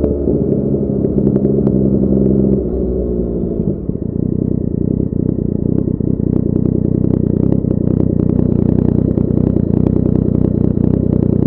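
Yamaha XSR900's inline-three engine through a Cobra full exhaust system. The revs hold steady, then drop as the bike slows about three seconds in, and the engine settles into a steady idle with a low rumble.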